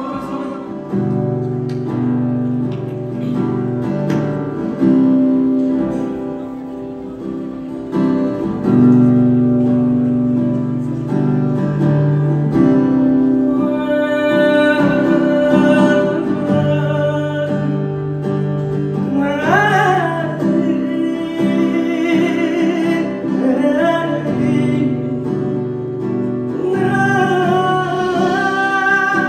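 Live band playing a slow song: sustained keyboard chords over bass guitar, with a male singer coming in about halfway through.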